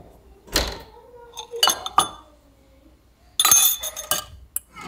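An oven door swinging shut with a dull thud about half a second in, followed by a few light clinks. A little past the middle comes a cluster of bright, ringing clinks of a stainless mesh sieve knocking against a glass mixing bowl.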